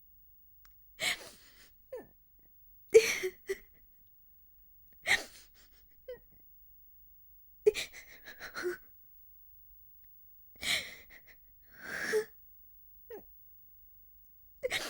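A woman crying: breathy, gasping sobs in about seven bursts spaced every two seconds or so, with short whimpers in between.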